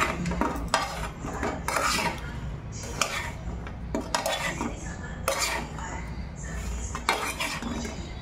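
A metal fork scraping and clinking against a metal plate as it turns pieces of fried soya chunks, in irregular strokes with sharp clicks. A low steady hum runs underneath.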